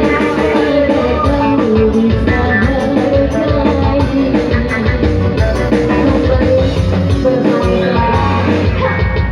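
Dangdut band music: drums and guitar keep a steady beat under a wavering melodic lead line.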